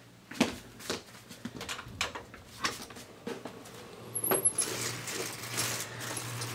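Footsteps walking through a room as a series of irregular knocks, then a door opening with a brief high squeak about two-thirds of the way in, followed by a steady hiss of outdoor air.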